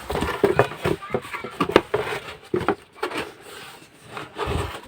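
Rustling of a package and its contents being handled and unpacked, with many short taps and knocks and a low thump near the end.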